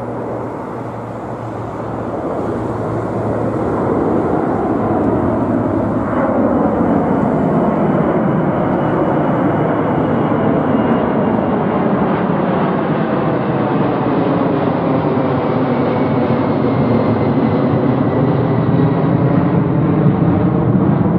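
Four-engine Boeing 747-400 freighter climbing out after takeoff and passing directly overhead. Its jet roar builds over the first few seconds and then holds loud, while a thin engine whine slides down in pitch as it goes over.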